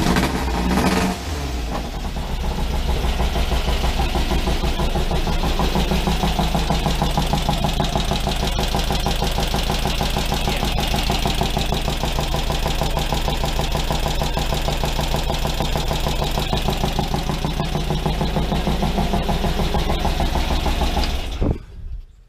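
A VW air-cooled flat-four dune buggy engine idling with a steady pulsing beat through chrome header pipes. The motor is shaking hard at idle, which the owner first blames on a bad spark plug or plug wires, with the transmission mounts as another suspect. The engine is switched off shortly before the end.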